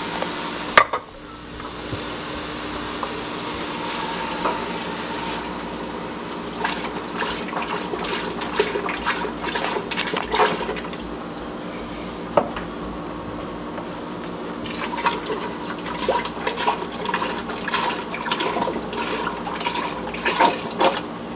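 Cold stock pouring into a stock pot onto the raw consomme raft of ground beef, vegetables and egg whites, with a sharp knock just under a second in. Then a spoon or ladle clinks and scrapes against the pot many times as the mixture is stirred.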